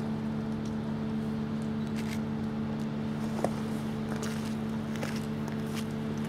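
Tour bus engine running with a steady low hum, a few faint clicks over it and one sharper knock about three and a half seconds in.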